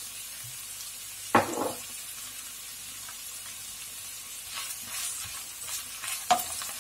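Green beans, beef mince and onion sizzling in a frying pan as a wooden spatula stirs them, scraping through the food in the second half. A sharp knock comes about a second and a half in, and a louder one near the end.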